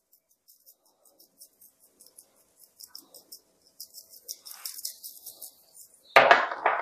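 Seasoning shaken from a plastic-capped spice jar onto raw chicken thighs: a light, rhythmic rattle of about four shakes a second, with the grains pattering faintly on the meat.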